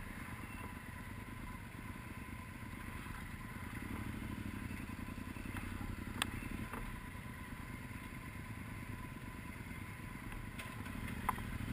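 Motorcycle engine running at low speed, heard close up from the bike's own mounted camera, with a slight rise in engine sound a few seconds in. There is a sharp click about six seconds in and another near the end.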